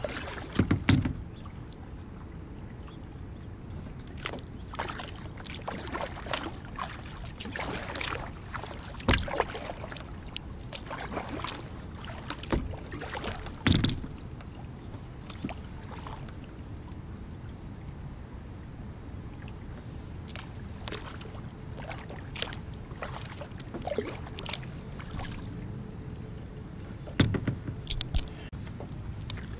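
Kayak paddling: paddle blades splashing into the water at irregular intervals, over a steady low rush of water moving past the plastic hull of a small Pelican kayak. The sharpest splashes come about a second in, twice mid-way and once near the end.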